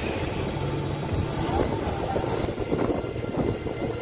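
Wind buffeting the microphone and road rumble from an electric rickshaw (toto) moving along a paved road, a steady low noise that flutters irregularly.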